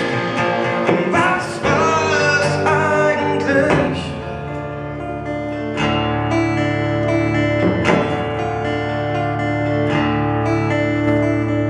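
Live acoustic song: acoustic guitar chords with a male voice singing in the first few seconds, then the guitar chords ringing on, struck about every two seconds.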